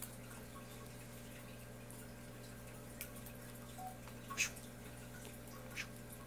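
Paper slips being handled and scrunched: a few brief, soft crackles, the loudest about four and a half seconds in, over a steady low hum.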